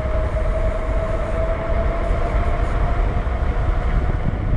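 Fat-tire e-bike at speed: the 52-volt, 750-watt Bafang motor whines steadily, its pitch creeping upward as the bike accelerates toward 30 mph, under a heavy rush of wind on the microphone and tyre noise.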